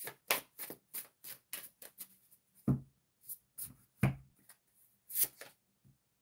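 Tarot cards being shuffled by hand: a quick run of soft card slaps, about three a second, for the first two seconds, then a few scattered taps and slides as the cards are handled and one is drawn.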